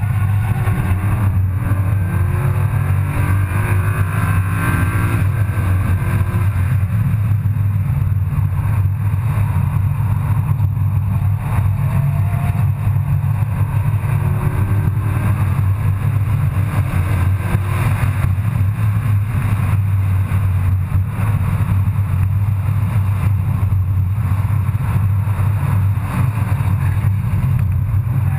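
Car engine and road noise heard from inside the cabin on a track lap: a steady low drone, with the engine note climbing in pitch in places as the car accelerates.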